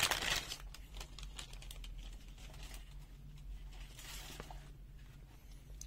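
Clear plastic bag crinkling as a handheld digital multimeter is slid out of it, loudest in the first half-second, then faint scattered rustles and small handling clicks.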